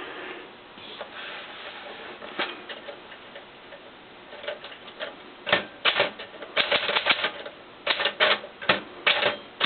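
Penncrest Caravelle manual typewriter, made by Smith-Corona: after a few seconds of faint clicks, typing starts about five and a half seconds in, with sharp key strikes in quick irregular runs.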